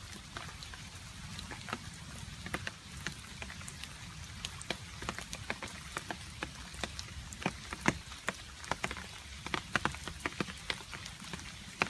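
Rain with water drops dripping onto a surface: irregular sharp drips, several a second, over a steady low rain noise.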